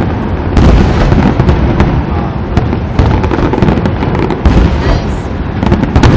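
Fireworks display going off in rapid succession: dense overlapping bangs and crackling over a continuous low rumble, with louder surges of bursts, typical of a finale barrage.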